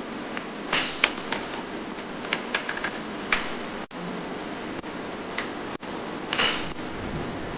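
Plastic toy crossbow gun being handled: clusters of sharp plastic clicks and a few brief rustles over a steady background hiss.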